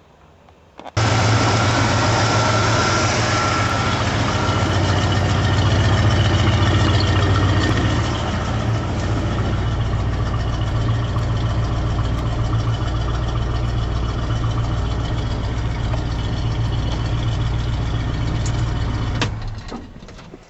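The 1972 GMC pickup's 402 big-block V8 idles steadily at about 1000 rpm. It comes in abruptly about a second in, settles a little quieter around eight seconds, and stops near the end.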